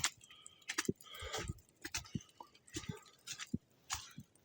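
Footsteps crunching in wet snow while walking down a trail, about two steps a second.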